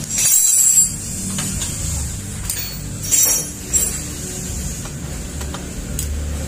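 Metal hand tools scraping and clattering as a long socket wrench works a bolt loose on a scooter engine's aluminium cylinder head, in short bursts about half a second in and again around three and four seconds in, over a steady low workshop hum.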